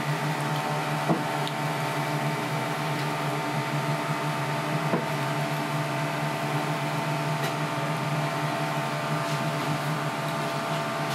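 Steady mechanical hum of kitchen equipment with several steady tones above it, and a couple of light clicks about a second in and about five seconds in.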